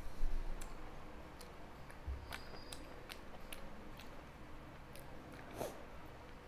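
Close eating sounds of a meal taken by hand: scattered small mouth clicks and smacks while chewing puri with soyabean curry, as fingers tear the bread and work it through the curry on a steel plate. There are soft thumps just after the start and about two seconds in.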